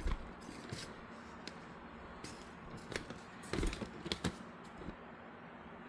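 Scattered light clicks and knocks of a PCIe riser cable and its bracket being handled and fitted against a PC case's mounting holes, with a quick run of knocks about three and a half to four and a half seconds in.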